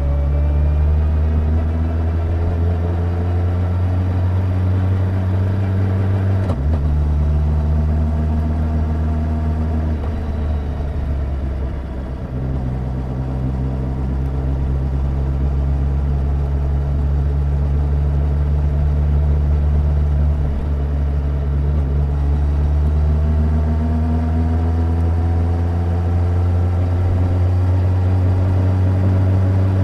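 2021 Suzuki Hayabusa's inline-four engine running under load, its pitch climbing slowly, then jumping abruptly about six seconds in and again around twenty seconds, with a brief easing off in between.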